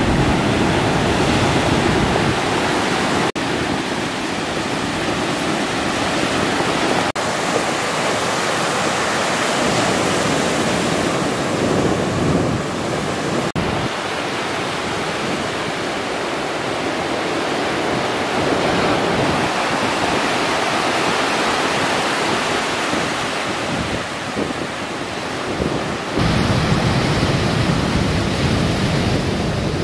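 Ocean surf breaking and washing ashore: a steady, loud rushing noise. The low rumble grows heavier about 26 seconds in.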